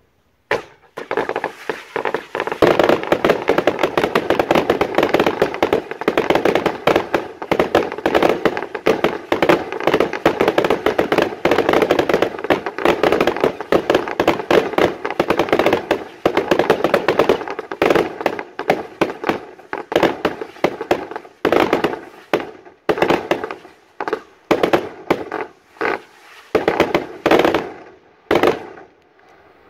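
Fireworks display firing a dense, rapid barrage of shots and bursts that starts about half a second in and keeps up without a break for roughly fifteen seconds. It then thins into separate volleys with short gaps between them.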